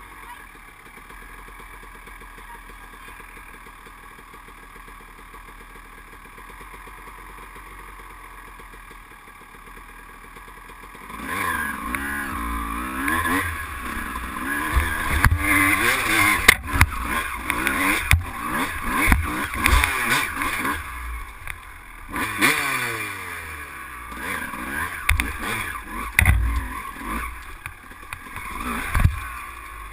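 ATV engine idling steadily, then about eleven seconds in it revs up and pulls away. Engine pitch rises and falls with the throttle, with repeated knocks and clatter as the machine jolts over rocks and brush.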